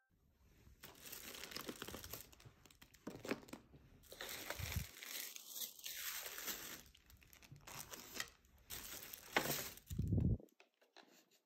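Plastic takeout packaging crinkling and rustling as hands unpack a delivered meal in a clear plastic container. There are two dull bumps, one a little before halfway and one near the end.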